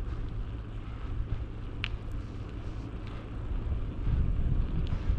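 Low rumble of wind buffeting the microphone and road noise from a moving bicycle, growing louder near the end, with one short high chirp about two seconds in.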